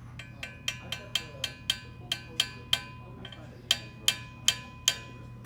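A dent ball being tapped inside a metal casing to push out damaged threads: a quick run of sharp metal taps that ring, about four a second, with a short pause midway before a second run.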